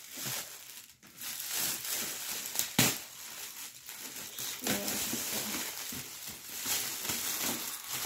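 Shiny metallic foil gift wrap and a plastic wrapper crinkling and rustling as a gift is unwrapped by hand, with one sharp, loud crackle about three seconds in.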